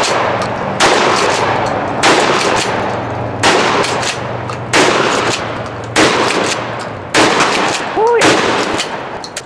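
Pump-action shotgun fired in a steady string of seven shots, about one every 1.2 seconds, each blast followed by a long echoing decay.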